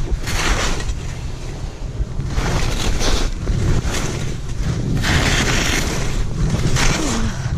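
Skis scraping and carving through packed snow, a swell of hiss with each turn, several turns in a row, over steady low wind buffeting on the microphone.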